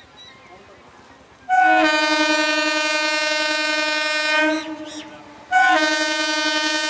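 Horn of an Indian Railways EMU local train sounding as the train approaches, in two long blasts. The first starts about a second and a half in and lasts about three seconds; after a short break, the second begins and carries on.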